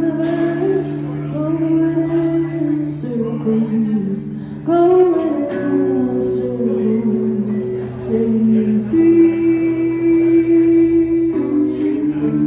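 Live acoustic-style duo: a woman singing long, held notes into a microphone, accompanied by an electric guitar played through a small amplifier.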